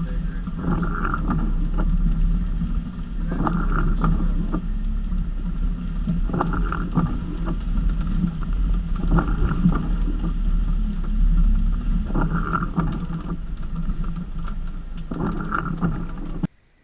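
Jeep YJ engine running at low trail speed, a steady low rumble with louder surges and knocks about every three seconds as the Jeep works over the rough trail. The sound cuts off abruptly just before the end.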